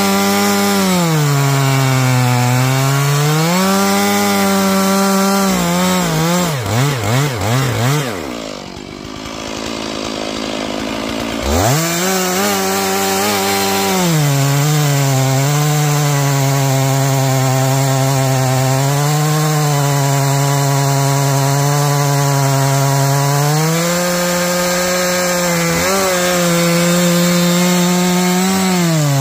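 Stihl MS461 two-stroke chainsaw cutting green fir, its engine pitch sagging under load and rising again as the cut eases. About six seconds in it is blipped several times in quick succession, then drops to idle for about three seconds. It revs back up sharply and settles into the cut again.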